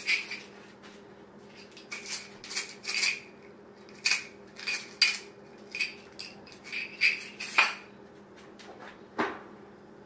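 Oven timer beeping in short irregular runs of two to four beeps, signalling the bake is done, until it stops about three-quarters of the way through. A single clunk follows near the end as the oven door is opened.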